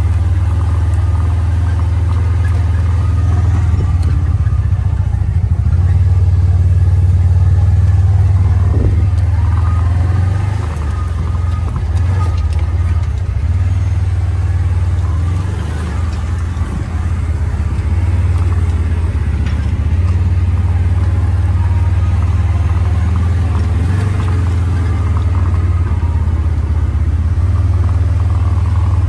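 Engine of a side-by-side utility vehicle running as it drives across a pasture: a steady low hum that eases briefly twice, around ten and sixteen seconds in.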